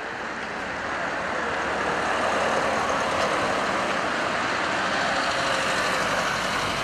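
A white car driving slowly past close by, its engine and tyre noise swelling over the first couple of seconds and then holding steady.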